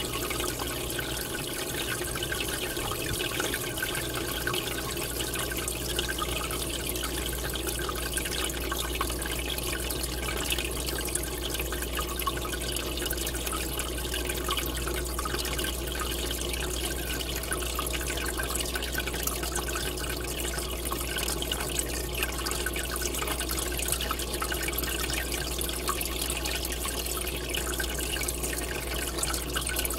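Aquarium water bubbling steadily from a rising column of air bubbles, over a steady low hum.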